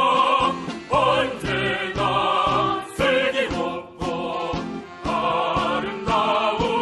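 Background music: a choir singing sustained phrases in harmony with accompaniment.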